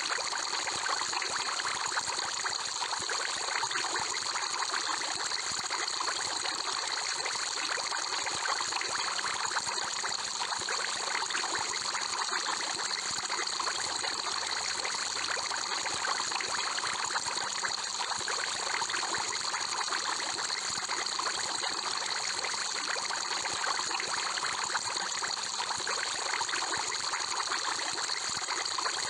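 Aquarium water trickling and bubbling steadily, with a constant hiss.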